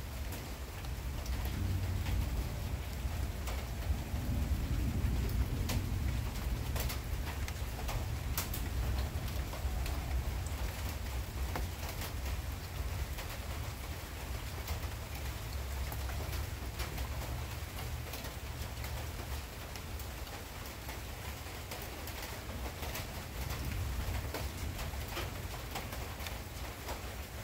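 Steady rain falling, with scattered close drops ticking on nearby surfaces, over a continuous low rumble that swells a few seconds in.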